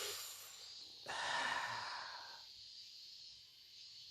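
A person's breathy sigh, heard twice: a short exhale ending about half a second in, then a longer, louder one lasting about a second and a half.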